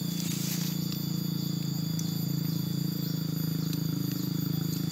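Steady high-pitched insect buzzing over a steady low drone, with a brief rustle of foliage about half a second in.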